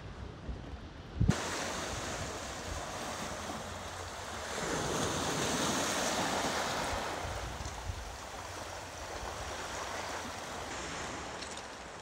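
Small waves breaking and washing up over a cobble and pebble beach, the wash swelling louder about halfway through and then easing. A short low bump comes just before the surf sound begins.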